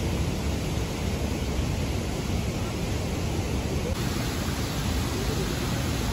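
Steady rushing of a waterfall and swollen river pouring over rock, an even roar of water.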